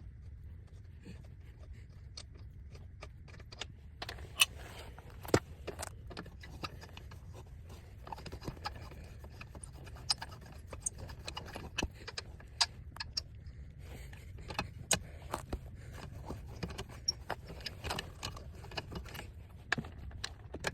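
Irregular sharp metallic clinks and taps of hand tools and lug hardware being worked on a car wheel during a tire change, many of them from about four seconds in, over a steady low background rumble.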